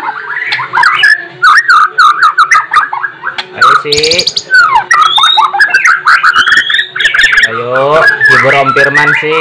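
White-rumped shama (murai batu) singing a loud, fast, varied song of whistles, chirps and sweeping notes, packed with mimicked calls (isian). A very high, rapid trill comes about four seconds in, and harsher notes that fall in pitch follow near the end.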